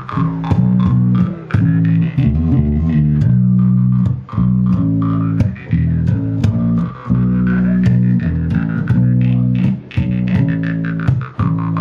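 Jaw harp (vargan) twanging in quick repeated plucks over a steady low drone, its bright overtone slowly sweeping up and down, with an electric bass playing along.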